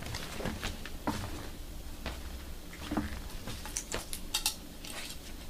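A whole nappa leather hide being handled on a table, lifted, shaken out and folded: scattered soft rustles, rubs and light taps.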